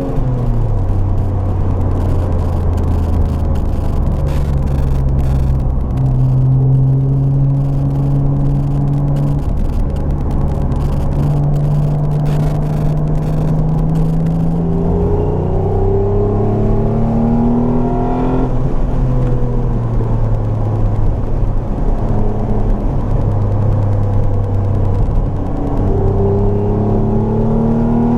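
Renault Clio V6's mid-mounted 3.0-litre V6 engine under way, its note climbing through the revs and dropping sharply at three gear changes. Wind buffets the microphone.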